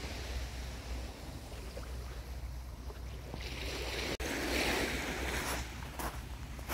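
Wind rumbling on the microphone over the soft wash of small waves on a calm sea. There is a short dropout about four seconds in, and a few light clicks come near the end.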